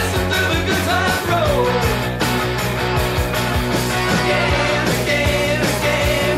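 Recorded late-1970s pop-disco music, an instrumental stretch with a steady beat, bass and melodic lines.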